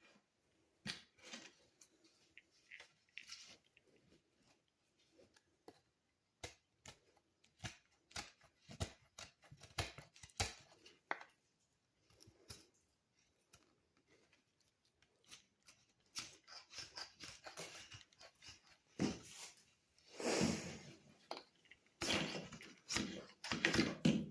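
Knife cutting and being handled: irregular clicks and short sharp strokes, turning into longer rasping cuts in the last few seconds.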